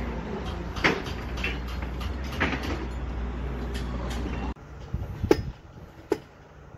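Construction-site noise: a machine engine runs steadily with a few knocks over it, then cuts off suddenly to a quieter background with a couple of sharp metallic clanks.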